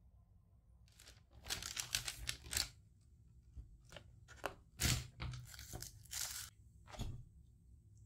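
Paper takeout bag rustling and crinkling as plastic containers are lifted out of it, then the plastic tubs being handled and set down, with a few dull knocks on the table.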